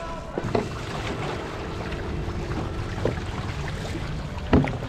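Water rushing and splashing along the hull of an outrigger canoe under paddle, with a few short knocks, the loudest near the end.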